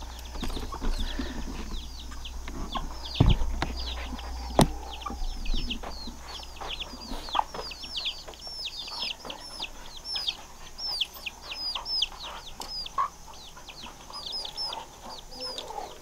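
Young chicks peeping constantly in quick, high peeps that fall in pitch, several a second, with a mother hen's occasional clucks. Two sharp knocks come about three and four and a half seconds in.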